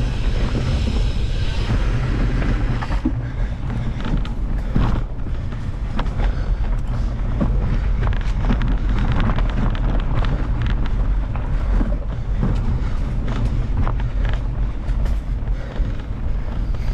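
A mountain bike ridden fast along a dirt singletrack, heard from a camera riding with it: a constant low rumble of wind and vibration on the microphone, broken by frequent short clicks and rattles as the bike goes over bumps and roots.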